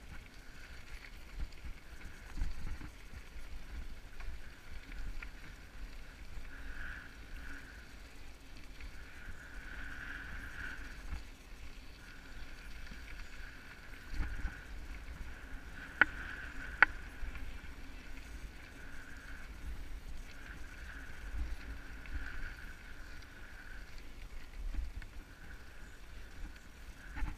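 Mountain bike riding over a rocky dirt trail: a continuous low rumble of tyres and wind on the microphone, with a higher hiss that comes and goes and two sharp clicks a little past halfway.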